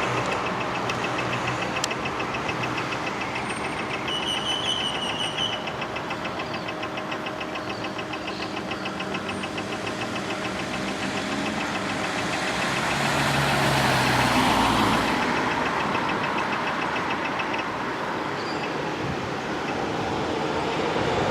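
Road vehicle engine idling, with a rapid, even ticking at about ten beats a second. A brief high chirp comes about four seconds in, and a louder rush of noise swells and fades around fourteen seconds.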